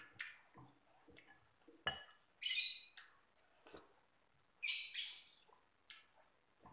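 Close-up eating sounds from a bowl of chicken noodles: a metal spoon and fork clicking against the bowl several times, and two short wet slurps of noodles, a little over two seconds in and near five seconds in.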